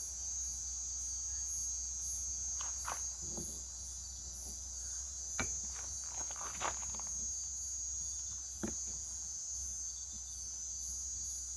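Insects chirring steadily in a high, evenly pulsing chorus, over a low hum. A few light knocks come and go through the middle.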